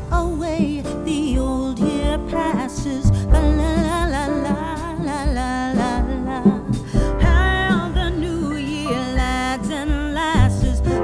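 Background song: a singer with vibrato over instrumental accompaniment and a steady bass.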